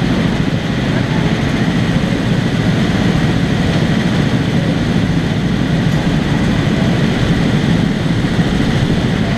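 Go-kart engines idling together in the pit lane, a steady, loud low rumble that holds even throughout.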